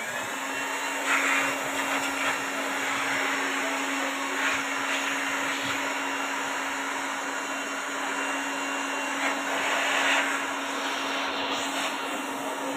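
Handheld electric air blower running steadily, blowing into a split AC outdoor unit's fan and coil to dry it after washing. A steady motor hum sits under the rush of air, which swells a few times.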